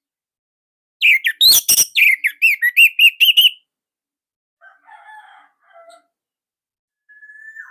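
Orange-headed thrush singing: a loud, rapid run of repeated chirping notes starting about a second in and lasting a couple of seconds, followed by fainter twittering and one whistled note that drops in pitch near the end.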